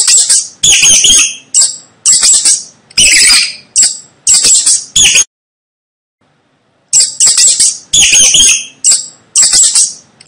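Mouse squeaking: loud, high-pitched squeaks in quick groups, about eight in five seconds. The run stops for about a second and a half about five seconds in, then the same run of squeaks starts again.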